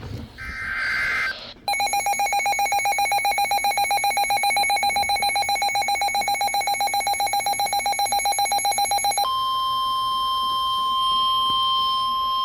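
Emergency Alert System broadcast: the tail of a SAME digital header burst, a harsh screech, lasts about a second. Then comes a rapidly pulsing alert tone for about seven and a half seconds. It changes abruptly to the steady 1050 Hz NOAA Weather Radio warning alarm tone, which marks the start of a severe weather warning.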